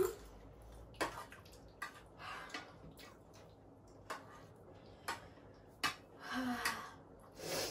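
People eating pani puri: scattered short crunches of the crisp puri shells and wet slurps of the spiced water, roughly one every second. A brief murmured vocal sound comes about six and a half seconds in.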